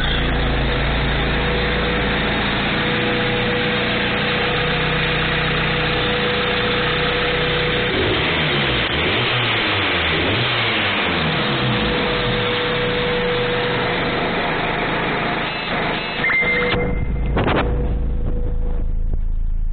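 Honda B16A DOHC VTEC four-cylinder engine with an open cone air filter, running steadily and revved up and down a few times in the middle. It runs and picks up cleanly with the timing belt set to the crank pulley's three notches rather than to the manual's mark.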